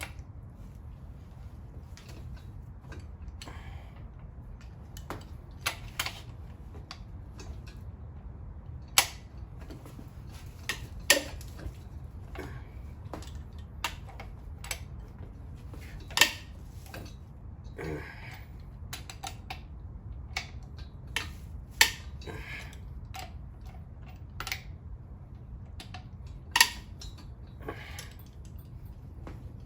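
Irregular metallic clicks, clinks and knocks of hand tools and loose parts on a Ford 302 Windsor engine being taken apart, several sharp and loud, over a steady low hum.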